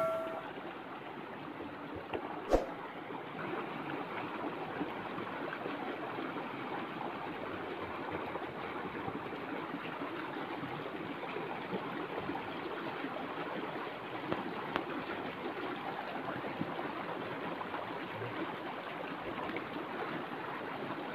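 Steady, even rushing noise like running water. A single sharp click comes about two and a half seconds in, and the ring of a bell struck just before fades out at the very start.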